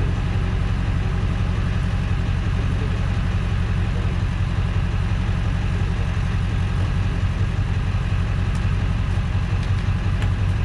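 Tow truck engine idling steadily, a constant low rumble.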